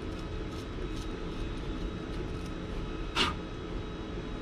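Steady low room hum with a few faint ticks and one sharper click about three seconds in, as a hard 3D-printed plastic part is handled at the bench.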